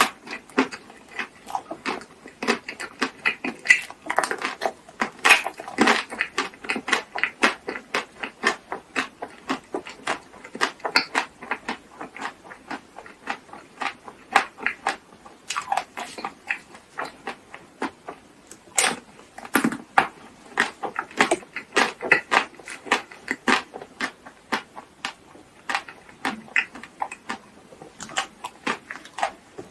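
Close-miked eating sounds: steady chewing with many quick wet clicks and smacks of the mouth.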